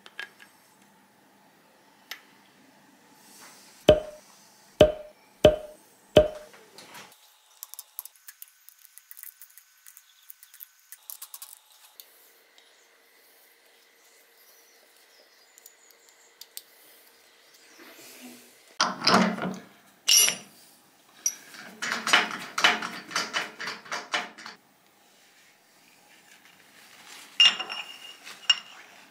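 Hand work with small metal parts and tools on a milling machine: four sharp knocks about a second apart, then light ticking, a long spell of clattering and rubbing, and a few ringing metallic clinks near the end.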